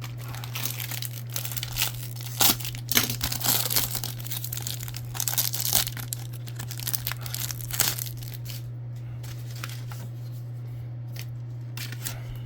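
A 1994 Action Packed football card pack being torn open: the wrapper tears and crinkles in irregular bursts for the first several seconds, then gives way to quieter rustling and light clicks as the cards are handled.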